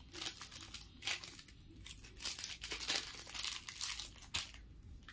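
Plastic packaging crinkling and rustling in quick irregular bursts as it is handled, stopping about four and a half seconds in.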